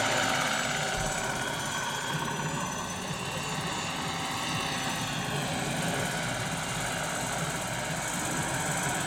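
Large scale radio-controlled Lama model helicopter flying close by: a steady high whine from its drive over the rough beating of the main rotor. The whine dips slightly in pitch about two to three seconds in, then recovers.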